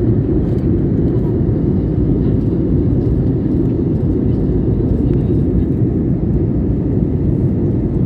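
Jet airliner cabin noise: a steady, low-pitched drone of engines and airflow heard from inside the passenger cabin.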